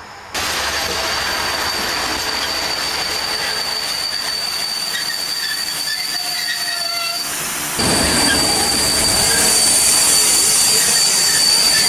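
Retro train passing along a station platform, a diesel locomotive hauling a steam locomotive that is out of steam: a steady high squeal from the wheels over the rumble of the rolling train. The sound jumps louder suddenly about half a second in and again near eight seconds.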